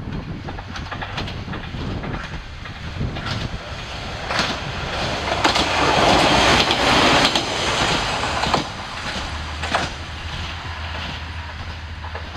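Noto Railway NT100 diesel railcar passing close by. It grows louder to a peak about six to seven seconds in, with a few sharp clacks of its wheels over the rail joints, then falls back to a low steady drone.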